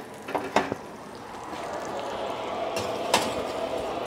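A metal roasting pan knocks a few times on a gas range's cast-iron grate as it is lifted off. Then a steady whir from the convection oven grows louder as the oven is opened, with a sharp clunk about three seconds in as the pan goes onto the oven rack.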